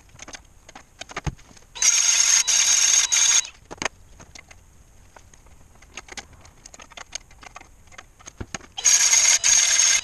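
Cordless drill running in two short bursts of high whine, each made of a few quick trigger pulls. The first comes about two seconds in and lasts a second and a half, the second near the end, drilling into a wooden gauge panel. Light clicks and taps of handling come between the bursts.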